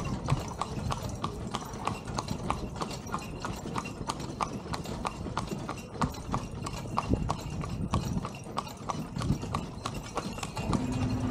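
Horse's hooves clip-clopping on a paved street as it pulls a carriage, an even beat of about four strikes a second. A steady low tone comes in near the end.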